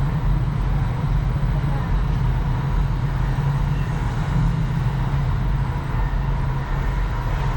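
Steady low rumble of passing traffic, with no clear start or stop.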